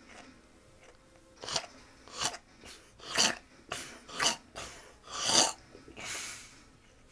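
Someone asleep snoring: about ten short, noisy breaths in quick, uneven succession, starting about a second and a half in, the loudest near the end.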